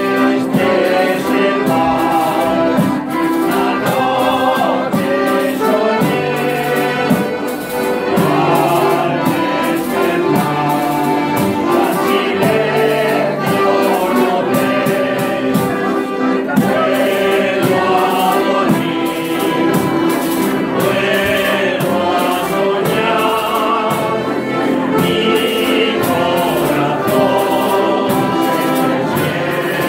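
A live amateur band of plucked and strummed string instruments, including guitar, playing a dance tune in a steady rhythm, with a group of voices singing along.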